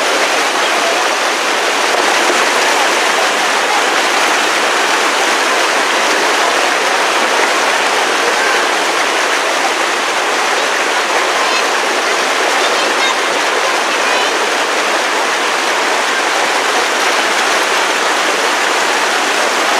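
Fast river rapids rushing over and around boulders: a steady, loud rush of whitewater.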